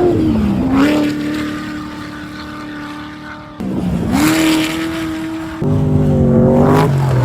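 Off-road race vehicles at full throttle, their engines running at a high steady pitch and dropping in pitch as they pass, once just after the start and again near the end. The engine note changes abruptly twice in the middle as another vehicle takes over.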